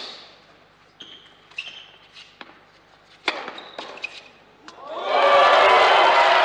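Tennis rally on an indoor court: sharp racket-on-ball strikes and bounces about once a second, with short shoe squeaks. About five seconds in the crowd breaks into loud applause and cheering as the point is won.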